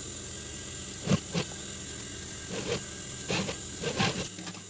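Industrial sewing machine running as it stitches a seam, with several sharp knocks over its motor hum; the stitching stops shortly before the end.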